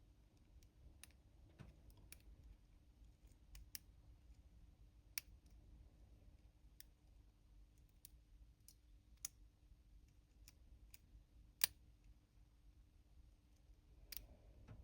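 Faint, irregular clicks of lock picks working the pins of a challenge lock, with one sharper click about three-quarters of the way through.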